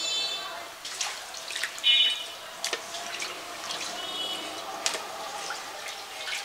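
Wet clicks, taps and drips as raw small river fish are handled on a plastic plate, with a sharp knock about two seconds in. A few short, high-pitched calls sound in the background.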